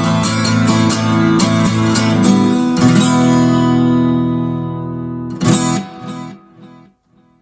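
Martin acoustic guitar strummed in rhythm, its chords voiced with the top two strings ringing open; about three seconds in a chord is left to ring, and a last strummed chord about five and a half seconds in dies away to silence, ending the song.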